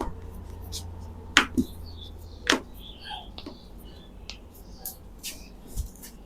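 Joints cracking under chiropractic manipulation: a string of short, sharp cracks and clicks at irregular intervals, the two loudest about one and a half and two and a half seconds in.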